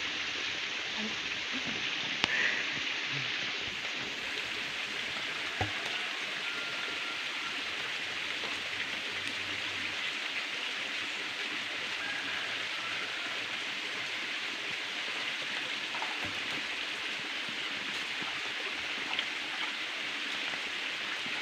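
Steady, even hiss of forest background noise, with a faint knock about five and a half seconds in.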